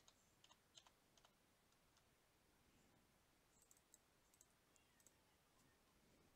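Near silence with faint, scattered clicks of a computer mouse, in small clusters about a second in and again a few seconds later.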